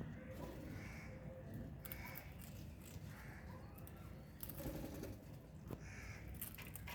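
Faint bird calls, short soft notes coming about a second apart, with a few light clicks among them.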